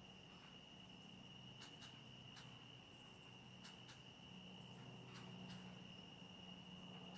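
Near silence with a faint, steady, high-pitched drone of insects such as crickets, and a few soft clicks.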